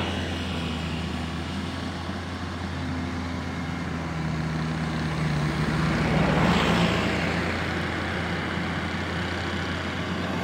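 Small four-wheel farm tractor's engine running steadily while working a wet rice paddy, a low even drone, with a brief swell of hiss about six seconds in.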